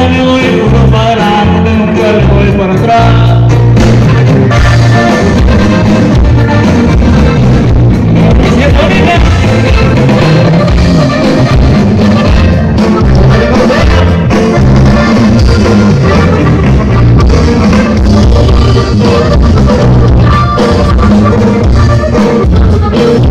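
Live norteño band playing, with button accordion, guitar, electric bass and drum kit, loud and continuous.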